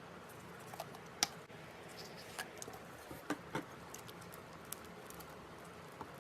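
Slime being handled: scattered small sticky clicks and pops, the loudest a little over a second in.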